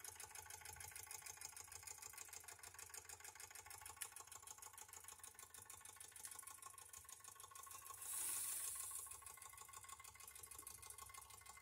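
Wilesco D455 model live steam engine running on steady boiler pressure after its electric heater has been switched off, with a fast, faint, even ticking from the engine. A short hiss of steam comes about eight seconds in.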